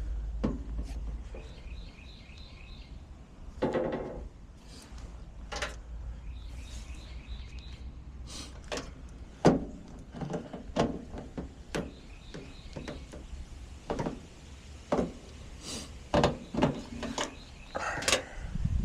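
Scattered sharp clicks and knocks from hand tools being worked, some louder thunks among them. Twice a bird chirps in short quick runs in the background.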